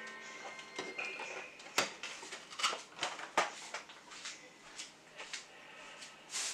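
Eggs set down in a glazed ceramic dish on a countertop: a few sharp clicks and light knocks, the loudest about two, two and a half and three and a half seconds in.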